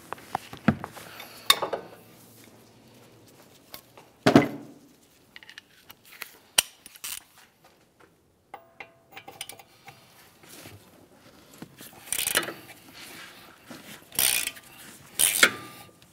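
Metal tools clinking and knocking as a breaker bar is fitted to and heaved on the steel caliper bracket bolts to break them free, with one sharp metallic knock about four seconds in. Near the end, a quick series of rasping clicks from a ratchet turning a bolt.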